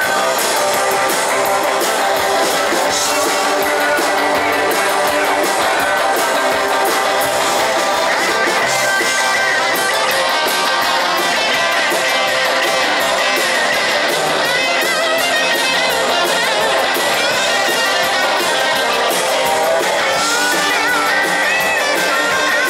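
Live rock band playing, with electric guitars strumming.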